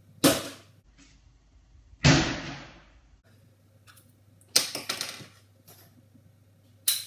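Plastic Elmer's glue and activator bottles knocking down onto a tabletop and being handled: a few sharp knocks a second or two apart, with a quick run of small clicks a little past the middle.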